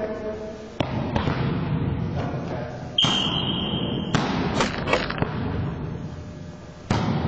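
Volleyball being struck and bouncing on a hardwood gym floor: several sharp smacks that echo through a large gymnasium, over a low hubbub of players. About three seconds in, a short, steady, high-pitched tone sounds for about a second.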